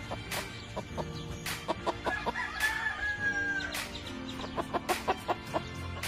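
A rooster crows once about two seconds in, ending in a long held note of about a second and a half, with short clucks from the chickens before and after it.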